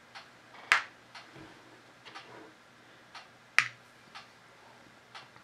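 A clock ticking steadily about once a second, with two louder, sharp clicks, about a second in and again just past the middle, from handling the digital pocket scale.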